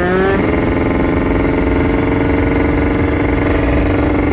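Kawasaki Ninja RR 150 two-stroke motorcycle engine held at high revs at full throttle, its pitch steady and slowly climbing, with wind rushing past.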